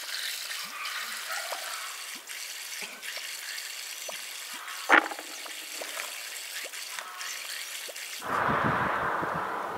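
Small dark rose hips rustling and clicking as they are scooped, rubbed between hands and let fall back into a plastic basin, with one sharper click about halfway through. Near the end a low rumble of wind on the microphone takes over.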